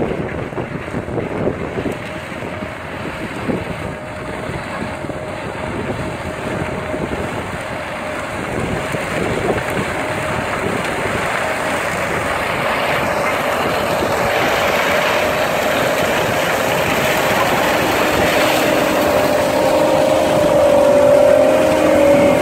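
Ropa euro-Tiger self-propelled sugar beet harvester lifting beets, its engine and lifting and cleaning machinery growing steadily louder as it comes up and passes close by. A steady whine rises out of the machine noise near the end, and wind buffets the microphone at first.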